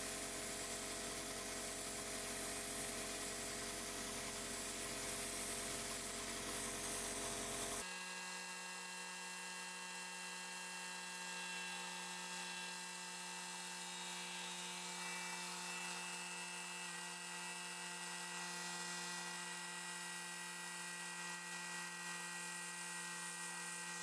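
Belt grinder running steadily with a whine, a hardened 1095 steel knife blade held against its abrasive belt. About eight seconds in the sound changes abruptly: the low rumble drops away and it gets a little quieter, then runs on steadily.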